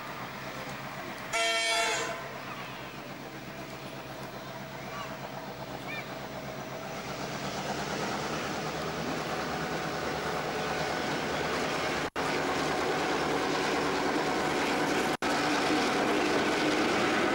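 A short blast of a train horn about a second in, then a 422 class diesel-electric locomotive's engine running, growing steadily louder as the locomotive approaches. The sound cuts out for an instant twice near the end.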